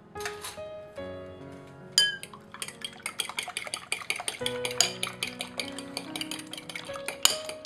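A utensil clicking rapidly against a ceramic bowl, several taps a second, as three raw eggs are beaten into an egg wash. The beating starts about two seconds in with a sharp knock, over background guitar music.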